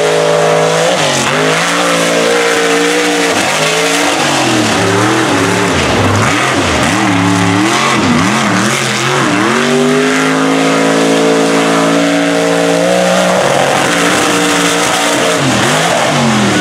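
Mega truck engine revving hard as the truck races over dirt, its pitch swooping up and down again and again with the throttle, then held high and steady for about three seconds past the middle.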